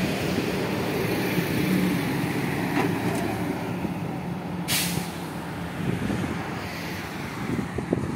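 Dubai Tram running along its track, heard from on board: a steady rumble and rolling noise with a low hum, and one short hiss a little past halfway through.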